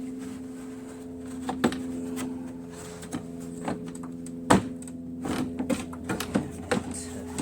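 Hand-working on a snowblower's plastic engine shroud: scattered clicks, knocks and rattles, the loudest knock about four and a half seconds in, then a quick run of taps, over a steady low hum.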